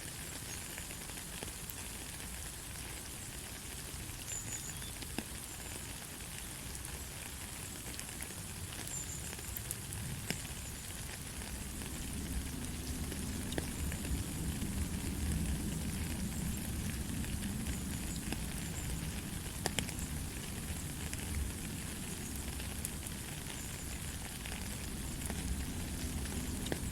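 Steady light rain: an even hiss with scattered sharp drop ticks. A low rumble builds up about halfway through and stays.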